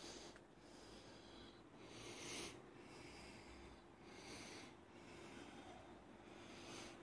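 Near silence, with soft breathing close to the microphone: a faint hiss that swells about every two seconds over a steady low hum.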